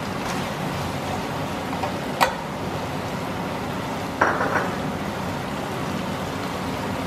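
A black spatula stirring a wet, saucy stir-fry around a speckled non-stick wok over a steady sizzle. The spatula taps sharply against the pan about two seconds in, and knocks again a couple of seconds later.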